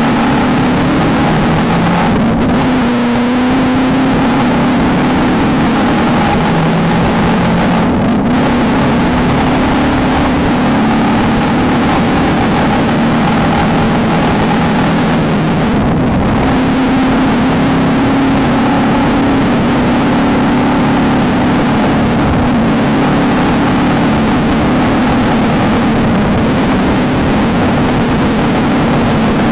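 Off-road desert race car's engine running hard at high revs, its pitch stepping up and down a few times, over a constant rush of noise.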